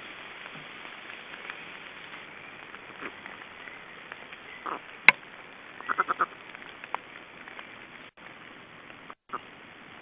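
Nest-camera microphone ambience: a steady hiss with scattered short high sounds, one sharp click about five seconds in, and a quick run of four or five short notes a second later. The sound cuts out briefly twice near the end.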